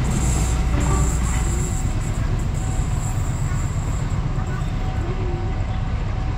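A passing train moving away after its last car has gone by: a steady low rumble, with a high thin ringing hiss from the rails that dies away about four seconds in.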